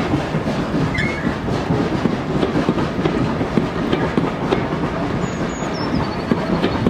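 Railway passenger coaches rolling past, their wheels clicking steadily over the rail joints.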